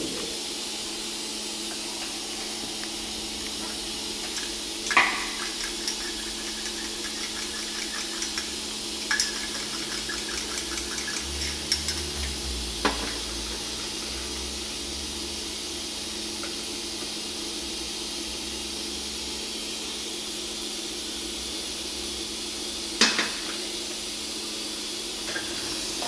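Light clinks and taps of a small paint cup and mixing tools as touch-up paint is mixed, with a few sharp knocks and a quick run of small ticks about ten seconds in. A steady low hum and hiss run underneath.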